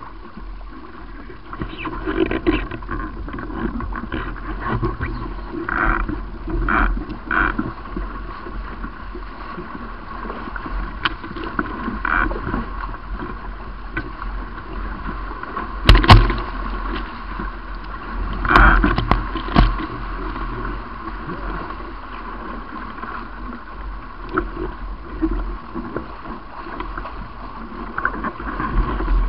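Water rushing past and slapping against the hulls of a Paper Tiger catamaran sailing at speed through chop. A few sharp knocks or splashes stand out, the loudest about sixteen seconds in and another cluster a few seconds later.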